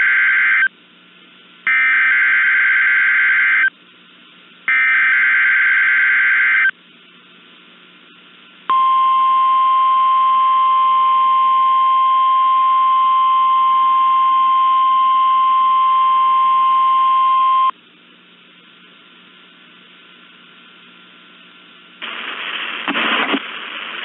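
NOAA Weather Radio weekly test signal. Three blasts of screechy SAME digital header data come about a second apart; the first is cut short and the next two last about two seconds each. Then the single steady warning alarm tone holds for about nine seconds, the tone that switches on alert-equipped weather radio receivers.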